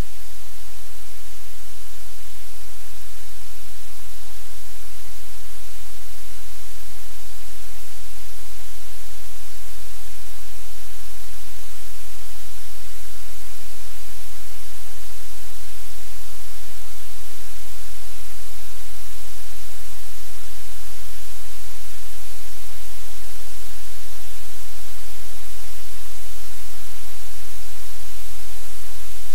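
Loud, steady static hiss with a low hum underneath: electrical noise on a livecam's audio line, unchanging throughout.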